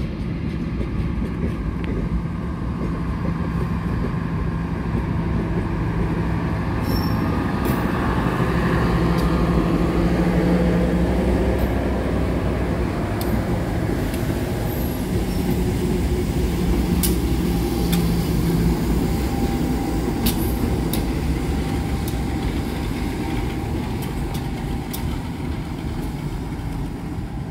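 Diesel locomotive engine running as the locomotive moves slowly while shunting: a low steady drone that swells to its loudest about ten seconds in and then eases off, with a few sharp clicks.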